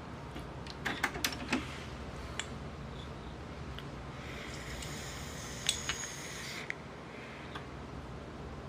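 Pioneer CT-W840R cassette deck mechanism: a quick series of mechanical clicks about a second in, then a whirring whine lasting about two seconds in the middle, with a click or two inside it, over a steady low hum.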